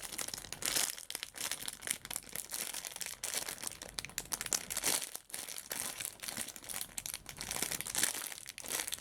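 Plastic packaging crinkling in irregular crackles as a squishy toy in its bag is handled and squeezed.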